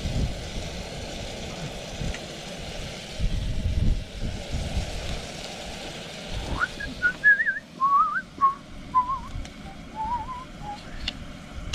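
Steak and mushrooms sizzling in a frying pan on a gas camping stove, a steady hiss that fades about seven seconds in. Over its end a person whistles a short warbling tune, sliding up and then wandering down in pitch.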